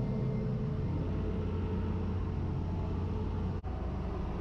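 John Deere crawler dozer's diesel engine running steadily, heard from inside its enclosed cab as a constant low rumble. The sound breaks off for an instant about three and a half seconds in, then carries on.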